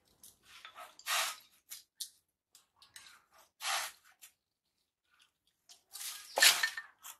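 Dry thin sticks rustling and clattering as a loose pile is gathered up by hand and lifted into a bundle, in several short bursts with pauses, the loudest about six and a half seconds in.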